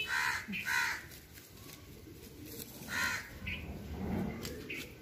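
Crows cawing: two harsh caws close together at the start and another about three seconds in, with fainter calls between.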